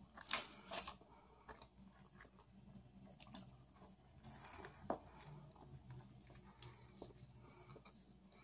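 Quiet eating sounds from biting and chewing a soft sandwich with lettuce, salmon and cream cheese. There are a few short crackles and clicks, the two loudest close together in the first second.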